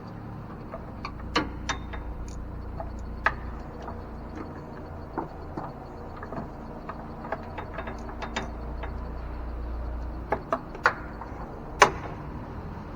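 Scattered light clicks and taps of hands and tools working a vacuum hose off its nipple on a plastic intake manifold, over a steady low hum. A few sharper knocks come close together near the end, the loudest just before it ends.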